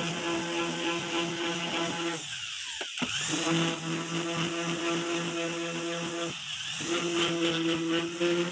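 Electric orbital sander running, its pad sanding a small strip of pine wood: a steady motor hum with a high hiss, the hum dropping out briefly twice.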